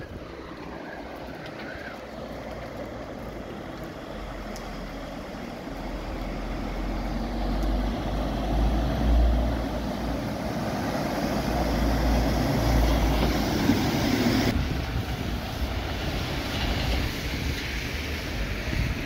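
Thunderstorm wind and rain rushing, with heavy wind rumble on the microphone that builds over several seconds and is loudest in the middle. It then changes abruptly to a steadier rushing noise.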